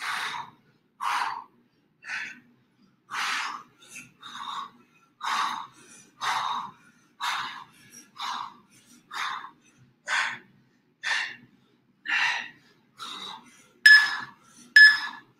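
A person breathing hard during a fast bodyweight exercise, with forceful breaths about once a second.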